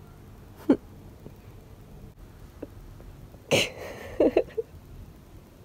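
A woman's short breathy laugh: a quick burst of breath about halfway through, followed by a few brief voiced huffs.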